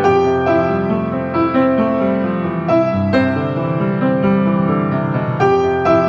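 Background music: a solo piano instrumental, with single notes and chords struck about once or twice a second.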